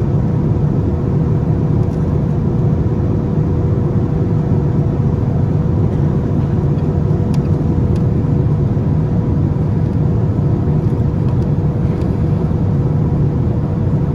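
Steady in-flight cabin noise of a Boeing 787-9: engine and airflow noise, even and unbroken, with a faint steady hum running through it.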